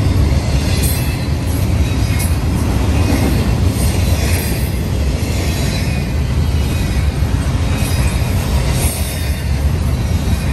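Double-stack intermodal well cars rolling past close by: a steady heavy rumble of steel wheels on the rails, with short faint high wheel squeals every second or two.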